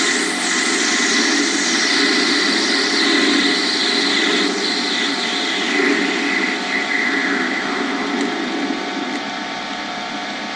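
Lathe running while the cutting tool takes a facing pass across the end of a cast acrylic blank: a steady machine hum under a scraping hiss that falls in pitch over the first few seconds and eases near the end.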